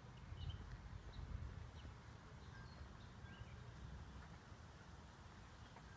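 Faint outdoor ambience: a low rumble of wind on the microphone, with a few short small-bird chirps and a high thin trill about four seconds in.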